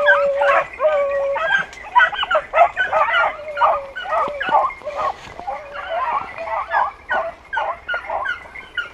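Hunting dogs baying: a rapid, unbroken run of high yelping barks from more than one dog, with long drawn-out howls in the first second or so.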